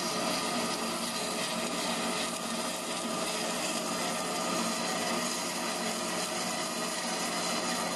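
A CNC abrasive-wire foam cutter running steadily, its wire sawing through rigid PUR foam.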